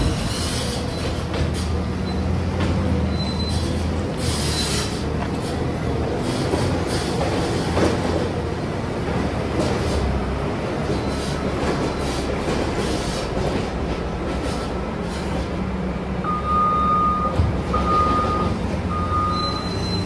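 JCB 419 wheel loader running and working, pushing a heap of chopped grass silage up the clamp with a steady mechanical rumble. From about 16 seconds in, a reversing alarm beeps repeatedly, roughly once a second.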